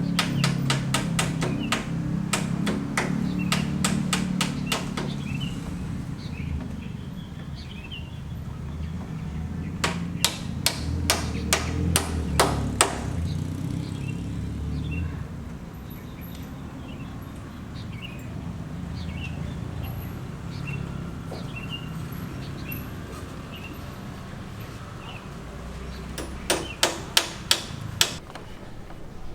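Hammer blows in quick runs on a building site: a long fast run near the start, about seven strikes in the middle and about six near the end, over a low steady rumble with faint bird chirps.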